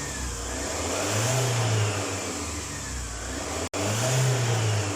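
Fiat Ducato van's diesel engine being revved twice, each rev rising and falling back. The engine has a complaint of engine noise and blows black smoke from its exhaust.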